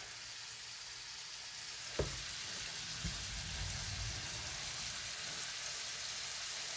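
Hamburger patties of ground beef sizzling steadily in a frying pan, just starting to cook. One sharp click sounds about two seconds in.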